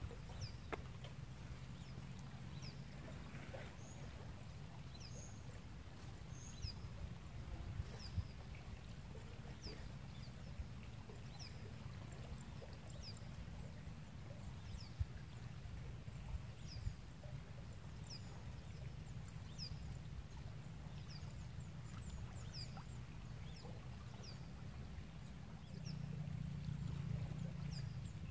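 A bird repeating a short, high, falling chirp about once a second over a steady low outdoor rumble that grows louder near the end.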